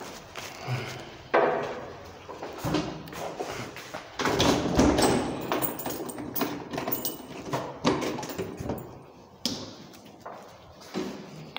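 A door being unlocked with a key and opened: keys and the lock rattling, with several knocks and thuds, the loudest a little over four seconds in.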